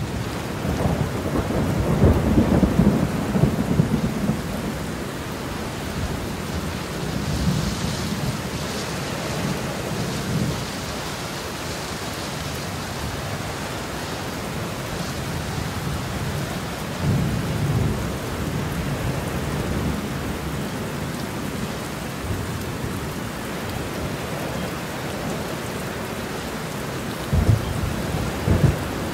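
Strong gusty wind of an approaching rain storm buffeting the microphone: a steady rushing noise with low rumbling gusts, heaviest a couple of seconds in and in two short blasts near the end.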